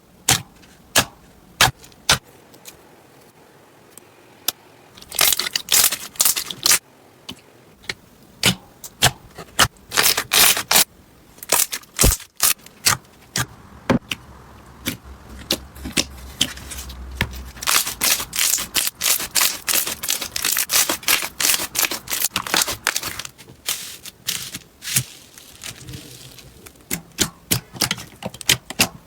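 Slime being pressed and worked by hand, giving sharp crackles and clicking pops, scattered at first and then in dense, quick runs.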